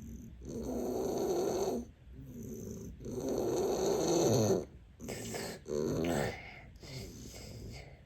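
Young child snoring, with a run of noisy, uneven breaths a second or so long, one after another, while recovering from adenoid and tonsil removal.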